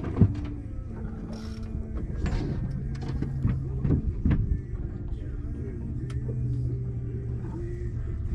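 Boat engine running steadily with a low hum, with one sharp knock just after the start and a few fainter clicks later.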